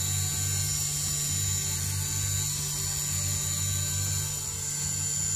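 High-speed spindle of a Banglemaster B12 jewelry CNC machine running steadily with a high whine as a carbide background tool engraves the surface of a gold octagonal bangle. A low throbbing of about two pulses a second runs underneath.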